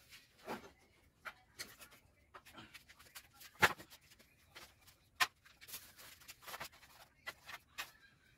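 Dry wooden firewood sticks knocking and clattering as they are set down on a dirt floor, with light rustling and scraping between the knocks. Two sharper knocks stand out, about three and a half and five seconds in.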